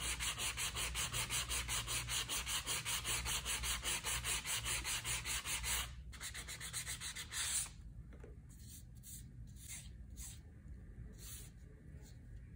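Sanding block rubbed quickly back and forth along the painted edge of a sewn, rolled leather handle, about five strokes a second, smoothing the edge paint in a first round of sanding. The strokes stop about halfway through, leaving a few faint handling sounds.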